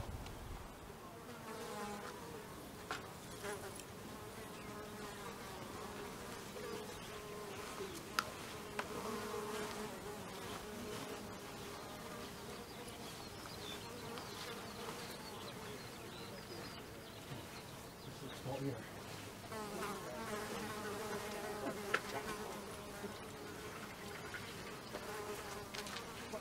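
A flying insect buzzing close by, its hum wavering in pitch and swelling and fading as it moves around. Two sharp clicks stand out, about eight seconds in and near the end.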